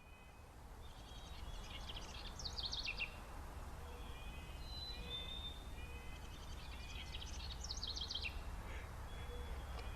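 Songbird singing: two bursts of song about five seconds apart, each a quick run of falling notes, with thin whistled notes in between, over a steady low rumble.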